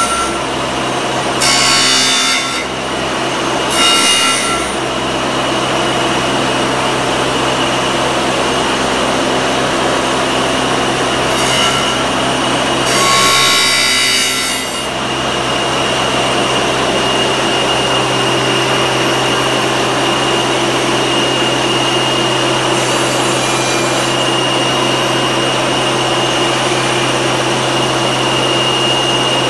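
Robot-held metal casting ground against a spinning abrasive wheel to clean off slag and burrs: a few short grinding bursts in the first five seconds and a longer one about halfway, over the steady hum and whine of the wheel motor. The second half is the machinery running steadily without grinding contact.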